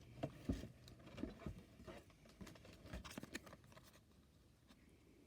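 Irregular soft knocks and taps of close handling noise, dying away about four seconds in.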